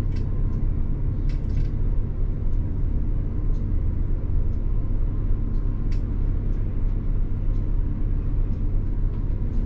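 Intercity coach's diesel engine idling while the bus stands still, heard from the driver's seat as a steady low rumble.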